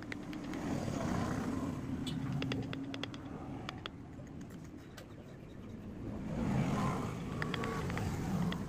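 A low motor rumble swells and fades twice, the first swell with a steady hum. Scattered light ticks and scrapes come from a steel hand chisel cutting into a carved wooden flower panel.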